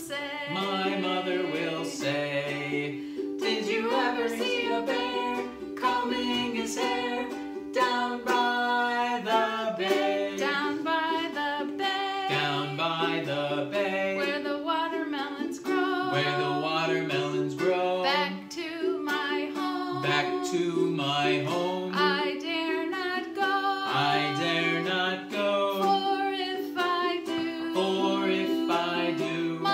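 Voices singing a children's echo song, each line sung and then repeated, over a strummed ukulele.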